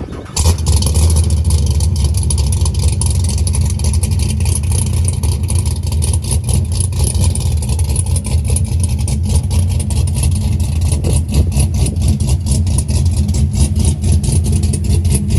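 Sixth-generation Chevrolet Camaro engine running loudly through its exhaust with a deep, steady rumble that comes in suddenly about half a second in.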